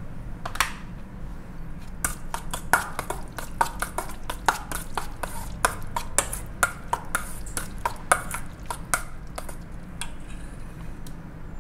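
A metal spoon stirring a mayonnaise mixture in a stainless steel mixing bowl, making quick, irregular clinks and scrapes against the bowl. The clinks start about two seconds in and stop near the end.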